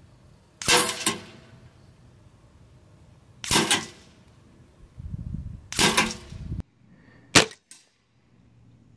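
Three shots from an FX Monsoon semi-automatic PCP air rifle, about two and a half seconds apart. Each is a sharp crack with a brief metallic ring as the pellet strikes a steel target. A shorter, sharper crack comes near the end.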